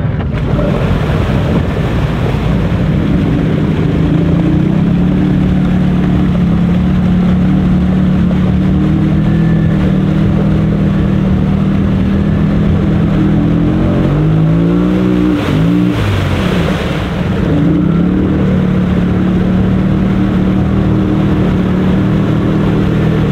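ATV engine held at high revs, the pitch dropping and climbing back up about fourteen to sixteen seconds in, as the machine is driven through a mud hole.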